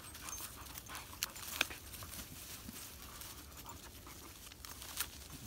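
Several dogs milling about on dry fallen leaves, panting, with scattered rustles and sharp snaps.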